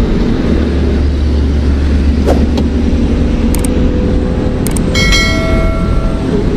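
Steady road and engine noise of a vehicle driving at highway speed. A horn sounds once for just over a second, about five seconds in.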